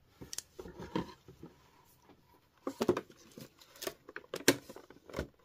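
Clear plastic blister tray being handled, with clippers ready to cut it: scattered sharp clicks and crinkles in short clusters, with a quiet stretch around two seconds in.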